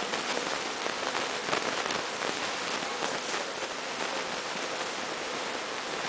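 Swarm of honeybees buzzing close by: a dense, steady hiss with a faint hum under it, and a few louder rustles.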